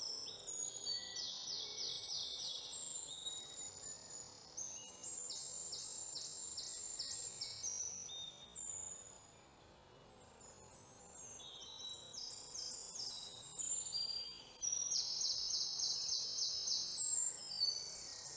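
Songbirds singing outdoors: several runs of rapid, high-pitched trilled notes, each lasting a couple of seconds, with a quieter lull about halfway through.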